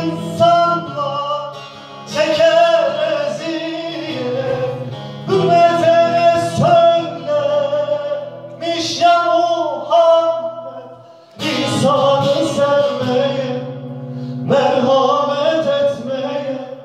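A man singing long, sliding vocal phrases into a microphone, accompanied by a strummed acoustic guitar, with short breaks between phrases.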